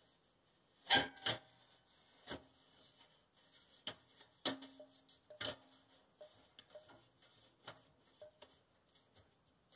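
Stainless steel perforated filter plate clicking and knocking against the inside of a Grainfather malt pipe as a hand presses it down into place: a run of irregular metallic clicks, the loudest about a second in, some with a short ring.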